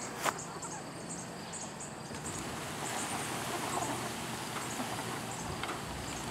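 Steady low electric hum of the chicken tractor's salvaged electric-wheelchair drive motors as the coop is driven by radio control, with hens clucking. A single sharp click comes just after the start.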